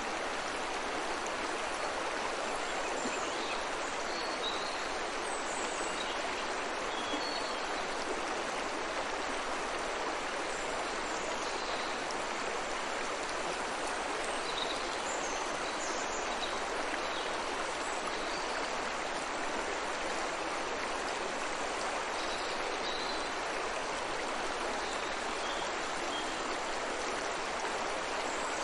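A river or stream running steadily, with faint, brief bird chirps scattered over the water sound.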